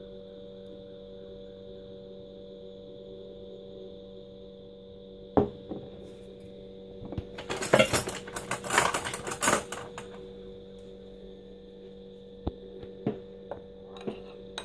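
Steady electrical hum throughout, with a sharp click about five seconds in and a stretch of noisy clatter and handling from about seven to ten seconds as chilli sauce is added to a small ceramic bowl. Near the end, a metal spoon clinks a few times against the bowl as the sauce is stirred.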